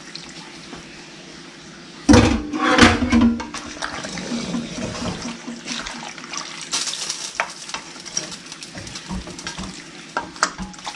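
A spoon stirring penne and chicken through a garlic-and-oil sauce in a pot: wet sloshing with scrapes and small clicks of the spoon against the pan, loudest about two to three seconds in.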